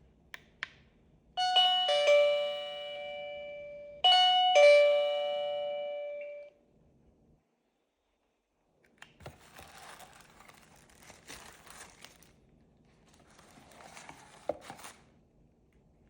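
Smart doorbell chime sounding a two-note ding-dong twice in a row, each higher note followed by a lower one that rings on and fades. After a short pause come several seconds of faint scratchy noise with small clicks.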